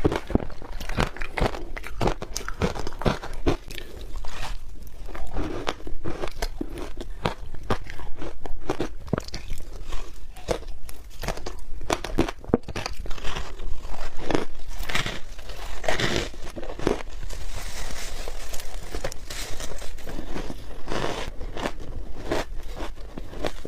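A person biting and chewing soft, crunchy ice close to the microphone: a dense, irregular run of crisp crunches and crackles.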